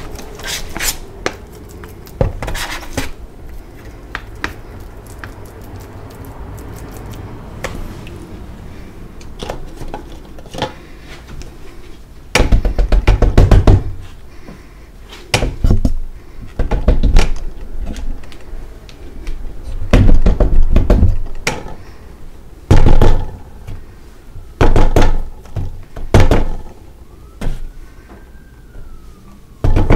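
Powdery gym chalk being tamped and pressed into plastic cups: a soft crumbly rustle, then repeated short bursts of rapid knocking and thudding, each about a second long, about eight times. A faint siren rises and falls near the end.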